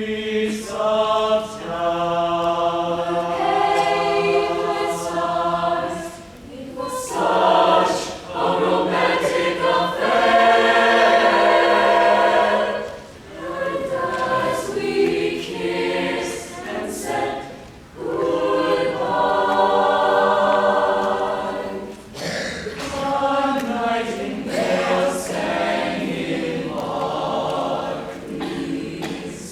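Mixed chamber choir singing a slow a cappella ballad in close harmony, phrase after phrase with short breaths between.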